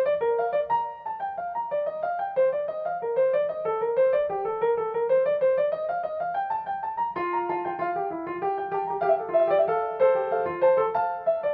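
Background piano music: a steady run of quick single notes stepping up and down.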